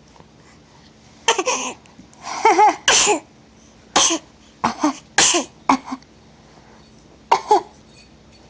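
A baby fake-coughing in play: about eight short, partly voiced coughs in little bunches, starting about a second in and stopping near the end.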